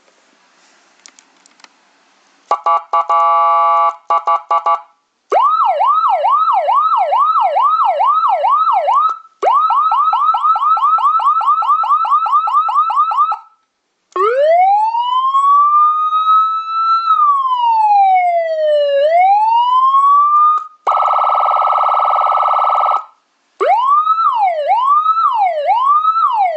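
TOA ZA-250 S electronic police-style siren, modified to seven tones, stepping through its tones one after another with short breaks: a buzzing horn blast, a yelp of about two sweeps a second, a faster warble, one slow wail that rises, falls and rises again, another buzzing horn blast, then a yelp again. It starts after a couple of quiet seconds with faint clicks.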